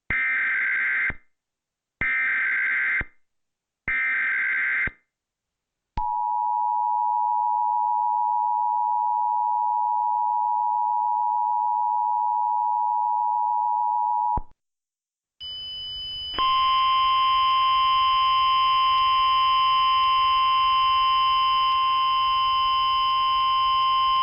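Emergency Alert System tones: three short, equal data bursts of the digital SAME header, then the steady two-tone EAS attention signal for about eight seconds, cut off sharply. After a brief gap a second steady alert tone starts, with fainter higher tones over a hiss.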